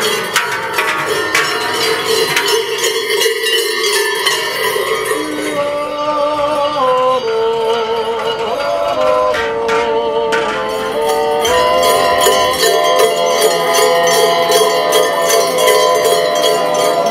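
Silvesterchlaus bells, the large Schellen and the round Rollen on the costumes, jingling and clanging without pause, while several men sing a Zäuerli, a wordless Appenzell yodel in several voices. The held, wavering notes step from one pitch to the next and stand out more clearly from about six seconds in.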